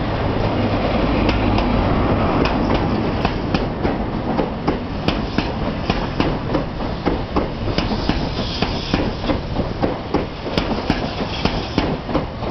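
An East Coast InterCity 125 High Speed Train passing close at speed. The Class 43 power car's diesel engine rumbles loudly as it goes by in the first couple of seconds. Then the coaches pass with a rapid, steady clatter of wheels over the rail joints.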